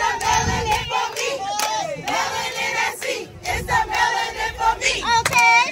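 A crowd of women shouting, whooping and singing along as they dance, with hand claps; one loud whoop rises and falls about five seconds in.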